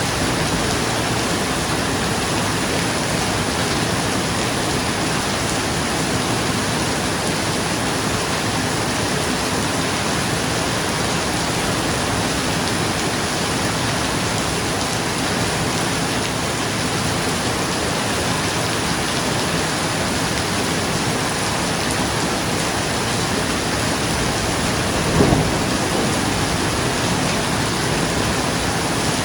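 Steady, dense rain falling on a roof, with one brief clap of thunder near the end.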